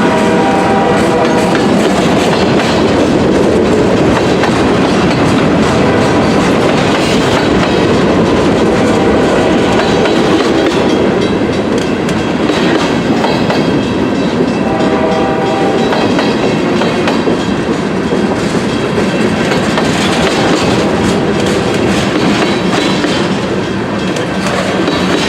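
CSX freight train passing close by: a steady, loud rumble and clatter of wheels on the rails. The train horn sounds briefly at the start and again about fifteen seconds in.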